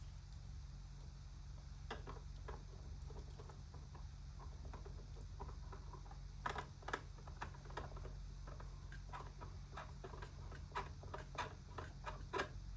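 Light scattered clicks and taps of a lens being handled and fitted onto a Kodak Super 8 camera body, coming in quick clusters in the middle and near the end, over a steady low hum.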